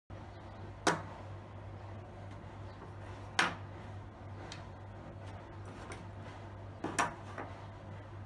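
Small metal hardware set down one piece at a time on a wooden board, each landing as a short sharp knock: one about a second in, another a few seconds later, and two close together near the end. A steady low hum runs underneath.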